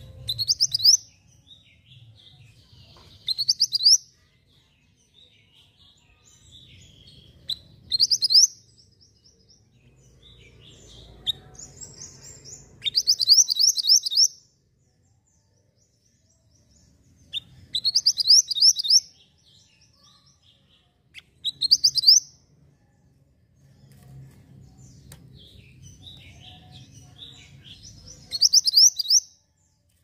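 Male minivet (burung mantenan) singing: about seven short bouts of rapid, high chirped notes, each lasting about a second, spaced every few seconds, over a faint low background hum.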